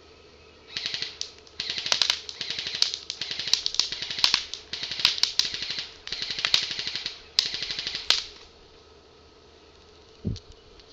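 JG M16A4 electric airsoft rifle firing on full auto in several short bursts of rapid clicks, its gearbox cycling and shooting BBs. A dull thud comes near the end.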